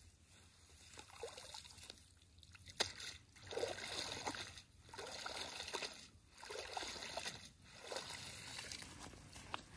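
Shallow river water sloshing and splashing in a run of separate swishes, roughly one every second and a half, with a sharp click about three seconds in.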